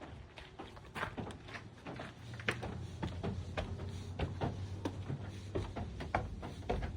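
Footsteps knocking on wooden boards, irregular and about two to three a second, with a low steady rumble coming in about two seconds in.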